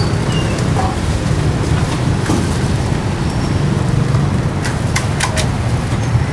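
Steady rumble of street traffic, with a few sharp knocks and crunches from a cleaver cutting crispy-skinned roast pork on a wooden chopping block, one about two seconds in and a quick cluster about five seconds in.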